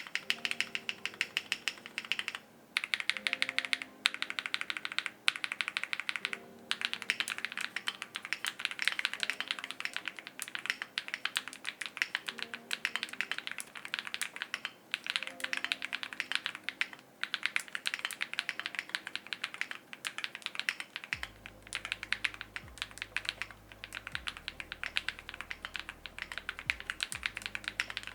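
Fast typing on a Meletrix Zoom65 v2 mechanical keyboard: a dense run of keystroke clicks, broken by brief pauses every few seconds.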